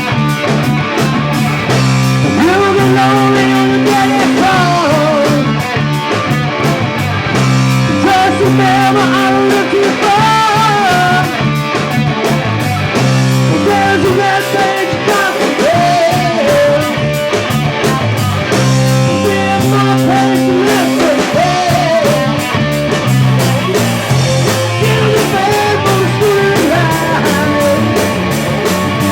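Rock music with electric guitar, drums and a singing voice, the melody sliding and bending in pitch.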